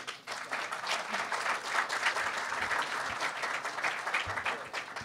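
Audience applauding, the clapping building up over the first second and dying away near the end.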